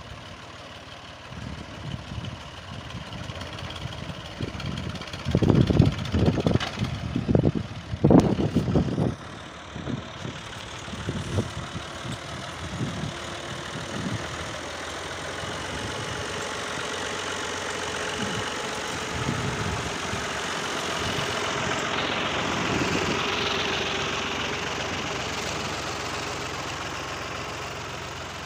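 A 1999 Fiat 480 tractor's diesel engine running under load as it pulls a fully loaded brick trolley, with a few loud low bursts about five to nine seconds in. The steady engine sound grows louder as the tractor comes past, is loudest a little past the middle, then fades as it moves away.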